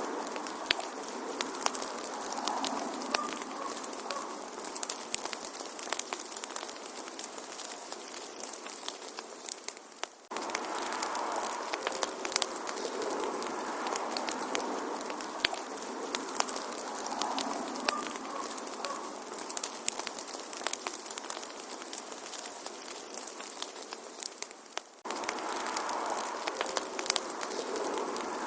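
Wood fire crackling: frequent sharp pops and snaps over a soft, steady hiss. The sound dips for an instant twice, about ten seconds in and again near the end, where the looped recording starts over.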